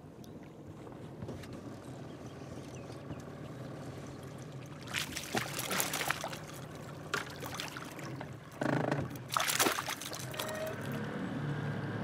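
A hooked striped bass thrashing and splashing at the surface beside the boat, in two spells of loud splashes from about five seconds in. Under it runs the steady low hum of the boat's motor.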